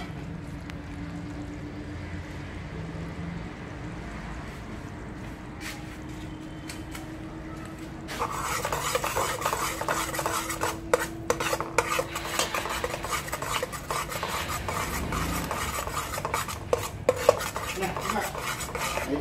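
Brown sugar caramelizing in an aluminium pot: a quiet steady hiss for about the first eight seconds. Then a spatula scrapes and stirs the thick caramel around the pot, with frequent clicks against the metal.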